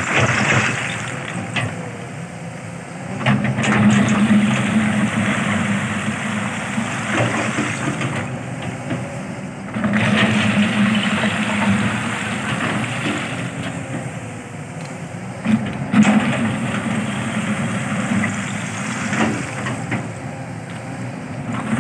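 Kobelco SK200 crawler excavator's diesel engine running, its note swelling every few seconds as the bucket works. Stones clatter as the bucket scoops into a pile of crushed rock.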